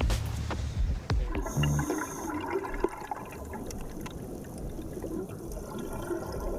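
A dive boat's engine idling, then the low hum gives way to a rush of water as a diver goes in. Underwater bubbling and water noise follow.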